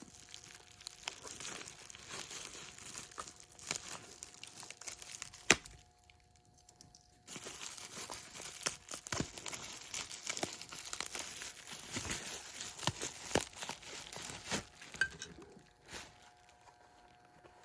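Toy-train packaging being cut and torn open with a knife: irregular crinkling and tearing with scattered sharp clicks. There is one loud snap about five and a half seconds in, then a short pause before the rustling resumes.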